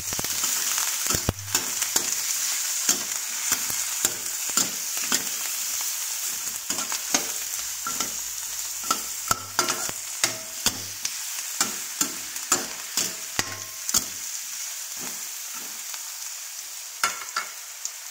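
Meat and sliced onion sizzling in hot oil in a stainless steel wok, turned with a metal spatula that scrapes and clinks against the pan many times at irregular intervals.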